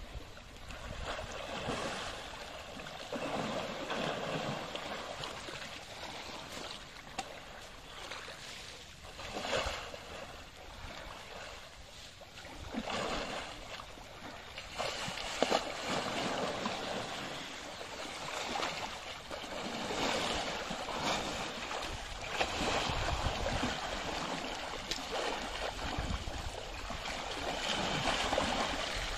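Young Asian elephant wallowing and rolling in a muddy pond, the water sloshing and splashing around her body in uneven swells, with a few bigger splashes along the way.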